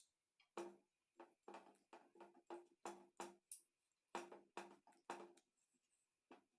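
Close-up chewing and lip-smacking while eating, a quick run of short wet mouth sounds about three a second, with a brief pause in the middle and stopping near the end.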